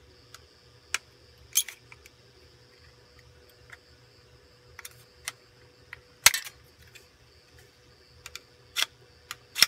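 Scissors snipping through thin aluminum sheet cut from a drink bottle: a handful of short, sharp clicks and crunches at uneven intervals, the loudest about six seconds in.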